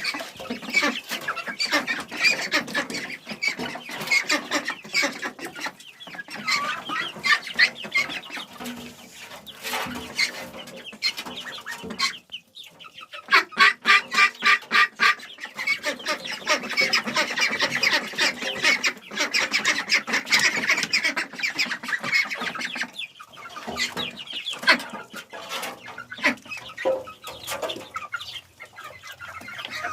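A flock of chickens clucking continuously while feeding, with overlapping short calls. A run of quick, loud clucks comes about halfway through.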